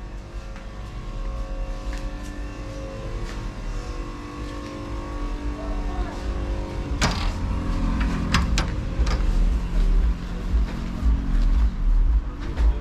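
Supermarket background hum, then a sharp clunk about seven seconds in as the glass shop door's push bar is pressed, with two more clicks just after. It is followed by street noise with a low rumble of car traffic.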